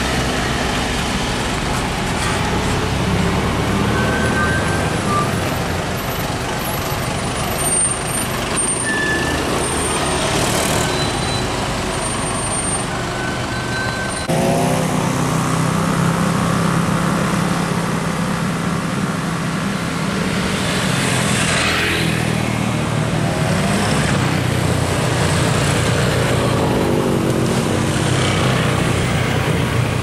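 Heavy diesel road traffic of buses and trucks, with engines running steadily. About halfway through a loud vehicle comes in suddenly, its engine rising in pitch as it pulls away, and a brief rushing sweep follows a little later.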